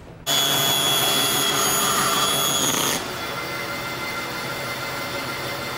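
Band saw cutting through a thick paper book: a steady motor whine with the rasp of the blade in the paper. It starts suddenly and about three seconds in drops to a quieter steady run.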